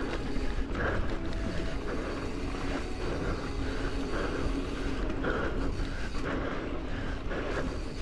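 Mountain bike riding fast over a dirt singletrack trail: steady wind and road rumble on the action-camera microphone, with irregular clatter from tyres and bike over roots and rocks.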